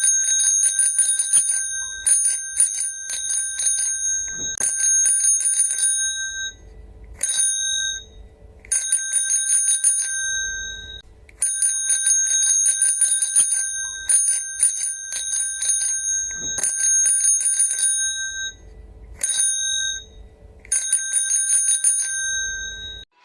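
Bicycle bell rung rapidly, a trilling 'kring-kring' in several bursts of one to six seconds each, with short pauses between them.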